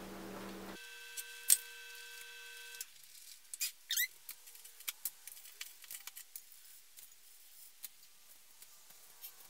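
Faint kitchen handling sounds of butter-brushing pretzels and dipping them in a glass dish of cinnamon sugar: scattered small clicks, taps and short scrapes, with a sharp click about a second and a half in. A steady background hum cuts off within the first second.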